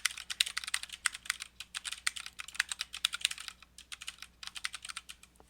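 Fast touch-typing on an Ergodox EZ split ortholinear keyboard: a rapid, uneven run of key clicks during a typing test.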